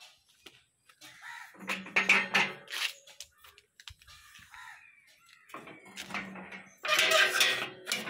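Steel double gate being swung shut by hand, metal creaking and scraping in two stretches: one leaf about one and a half seconds in, the other from about five and a half seconds.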